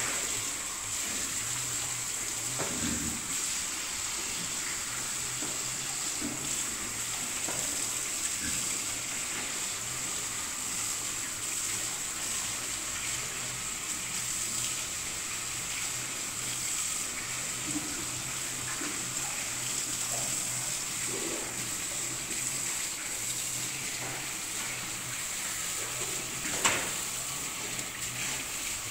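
Water running steadily, a continuous rushing hiss under a low steady hum, in a wet pig pen, with a few short low sounds from the piglets and a single sharp knock near the end.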